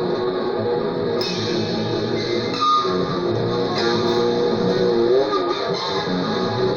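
Guitar music with layered plucked notes and a bass line, one note bending near the end.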